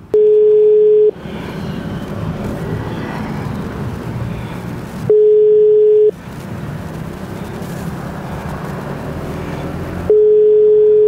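Phone ringback tone heard through a motorcycle helmet intercom: a steady single-pitched beep about a second long, three times about five seconds apart, meaning the outgoing call is ringing and not yet answered. Engine and road noise from the ride fill the gaps between the beeps.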